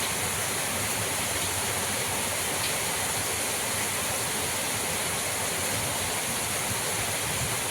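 Strong wind rushing steadily through pine trees in rain, an even, unbroken hiss like running water.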